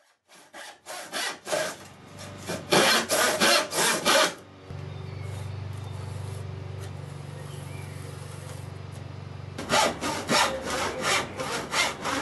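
Hand sawing through a pine board in quick, even strokes, about three a second, fading in at the start. The sawing stops about four seconds in, a steady low hum fills the next five seconds, and the sawing starts again near the end.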